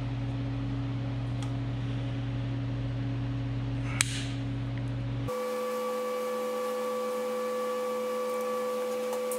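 A steady hum that a bit past halfway switches abruptly to a higher, thinner whine. About four seconds in there is one sharp metallic click as a screwdriver works the set screw on the auger bearing's cam-lock collar.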